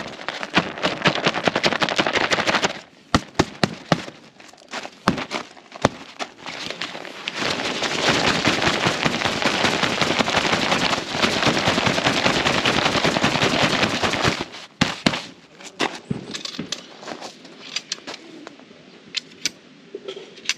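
The zipper of a Snowline Saturn 2-room DX tent being drawn along the tent fabric, a dense rapid ratcheting. One pull runs for the first few seconds and a longer one from about eight to fourteen seconds in. Scattered clicks and knocks of the fabric and poles being handled fall between the pulls and after them.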